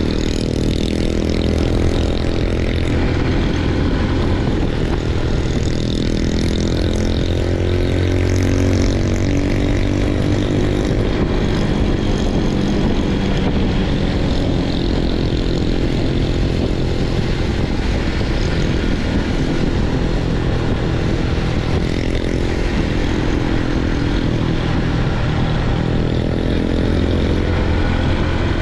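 Small motorbike engine running steadily at cruising speed, heard from aboard the moving bike, its pitch rising and falling a little with the throttle. A steady rush of wind and road noise runs under it.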